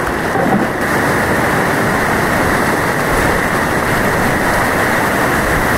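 Whitewater rapids rushing steadily and loudly around a kayak, heard close up from the boat as it runs a steep, rocky river.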